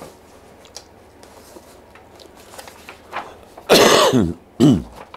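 Soft rustling of paper sheets being leafed through, then a man coughs twice near the end.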